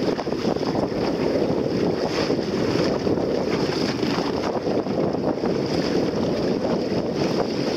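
Wind buffeting the microphone, with water rushing along the hull of a small sailing dinghy under way, as a steady noise without breaks.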